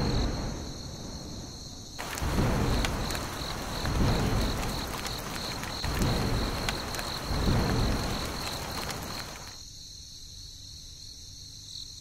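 Thunderstorm: a thunderclap right at the start, then heavy rain with several rolls of thunder that stops about two seconds before the end. A steady chirping of crickets runs underneath throughout.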